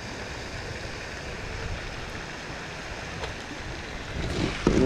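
Steady wind and water noise outdoors, with a single faint click about three seconds in.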